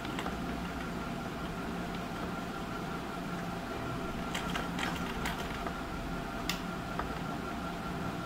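Small electric motor humming steadily, with a few light clicks about halfway through.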